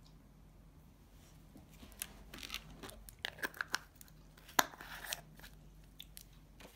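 Small plastic clicks, taps and scrapes as a plastic nail swatch stick and acrylic powder jars are handled while a colour swatch is made. The sounds start about two seconds in, with one sharp click a little past halfway.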